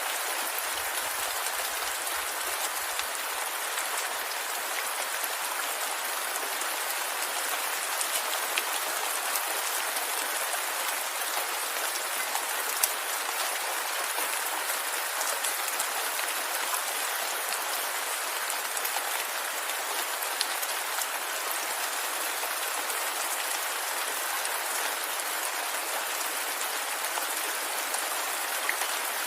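Steady rain falling, with individual drops ticking on a surface now and then.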